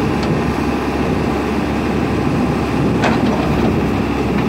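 JCB 3DX backhoe loader's diesel engine running steadily under hydraulic work as the backhoe arm and bucket move, with a short knock about three seconds in.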